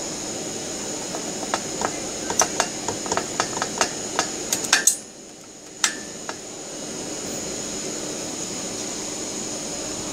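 A screwdriver working out the screw that holds a transformer to an inverter's aluminium heatsink: a quick run of sharp, light metallic clicks and taps over the first five seconds. After that only a steady background hum remains.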